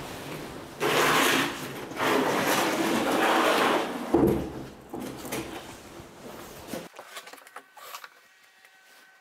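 Large black plastic Otter sled scraping and dragging over a concrete floor as it is tipped up onto its end, in two long scrapes, with a knock about four seconds in and smaller bumps after.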